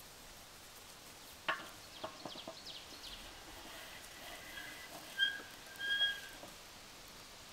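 A few light clicks, then a bird whistling several short, level notes. The last two notes, about five and six seconds in, are the loudest.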